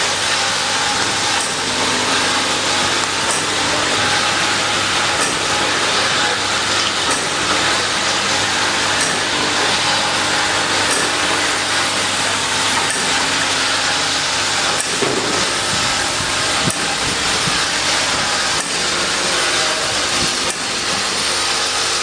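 Automatic filling, plugging and capping machine running: a steady mechanical whir and hiss from its conveyor and drive, with a faint click about every two seconds as it cycles.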